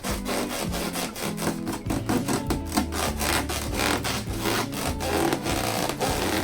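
Latex balloons being rubbed by hand in rapid repeated strokes, giving a dry rasping squeak, over background music.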